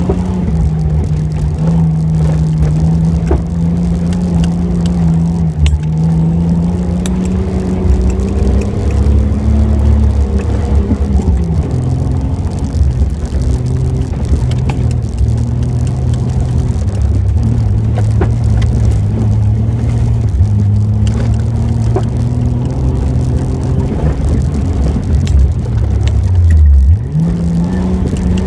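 Off-road vehicle's engine working hard through a dirt course, heard from inside the cab over low rumble; its pitch holds high, drops off about halfway, then dips and climbs sharply again near the end as the driver comes off and back on the throttle. Scattered clicks sound through it.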